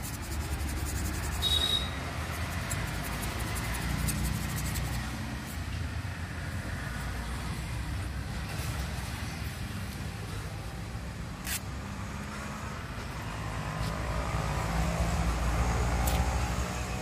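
Steady low rumble of road traffic, swelling near the end as a vehicle passes, with a few sharp clicks. At first, abrasive paper rubs inside a brake wheel cylinder.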